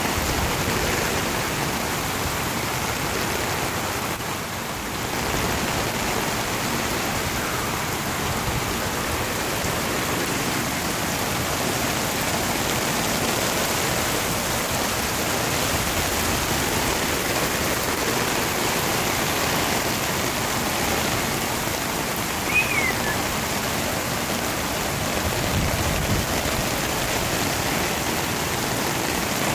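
Floodwater rushing down a street, a steady rushing noise. About three quarters of the way through there is one short, high chirp that falls in pitch.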